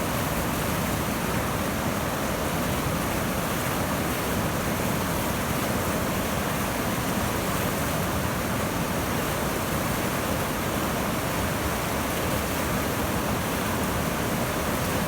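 A river in spring snowmelt flood, its rushing cascades making a steady, loud roar of white water.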